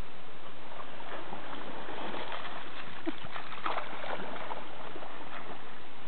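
French bulldog splashing as it bounds through a shallow stream, a run of splashes that grows loudest about three and a half seconds in, over the steady rush of the stream.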